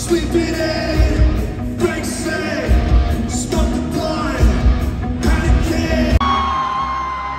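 Loud live rock music with singing over heavy drums and bass. About six seconds in, the drums and bass cut out, leaving one held high note.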